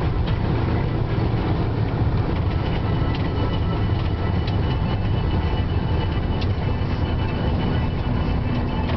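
Steady road and engine rumble heard inside a moving car's cabin.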